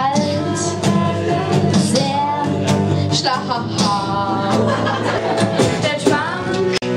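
Young woman singing into a handheld microphone, accompanied by acoustic guitar. The sound drops out for an instant near the end.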